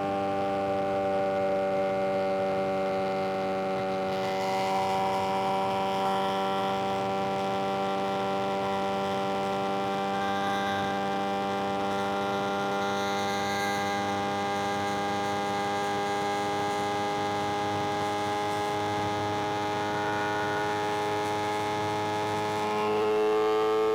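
Suzuki GSX-R750's inline-four engine running steadily at cruising revs, an even drone whose pitch sags slightly and then climbs as it accelerates near the end.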